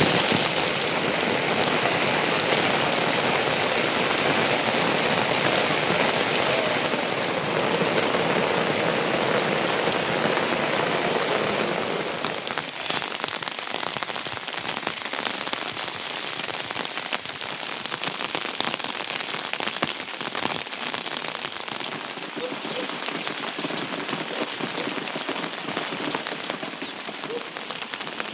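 Rain falling steadily with a dense hiss and scattered drop clicks. About twelve seconds in it becomes quieter and duller.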